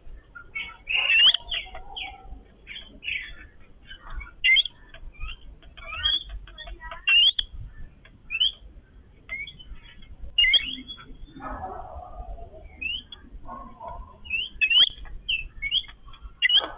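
A family of yellow-billed babblers calling continually: many short, overlapping squeaky chirps, with a few lower, harsher calls around the middle.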